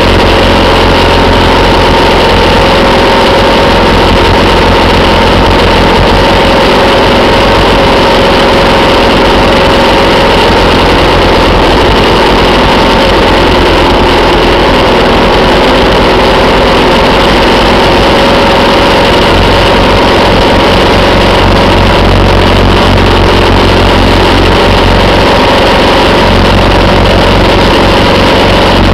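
Motorcycle engine running steadily at cruising speed, loud and unchanging, with a steady rush of wind and road noise.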